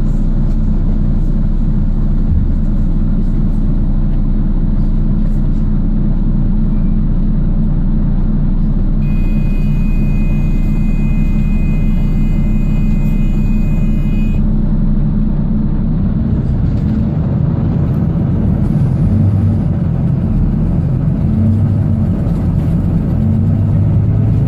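Volvo double-decker bus running on the road, its diesel engine giving a steady low drone that turns rougher and pulses from about two thirds of the way in. A steady high-pitched tone sounds for about five seconds around the middle.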